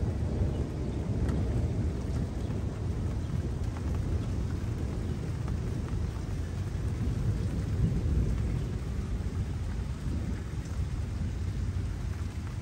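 Thunder rumbling low and long. It eases off at first and swells again about eight seconds in, with scattered raindrops ticking.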